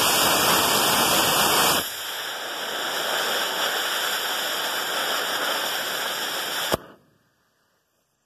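Estes D12-5 black-powder model rocket motor static firing: a loud rushing hiss of the thrust burn for nearly two seconds, then a quieter hiss for about five seconds as the delay charge burns. It ends in a sharp pop as the ejection charge fires.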